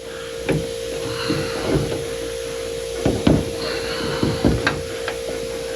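Scattered light knocks and rubbing from hands and tools working window channel felt into a car's window frame, over a steady hum.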